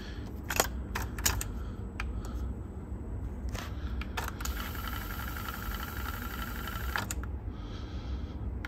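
A test cassette being handled and loaded into an Aiwa AD-F990 cassette deck: a scatter of sharp mechanical clicks and clacks a second or so apart, over a low steady hum.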